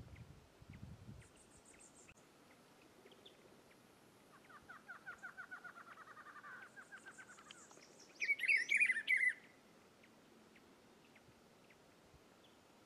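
Rufous-browed peppershrike singing one loud, warbled phrase about eight seconds in. Before it come quieter rapid trills and high chirps from birds.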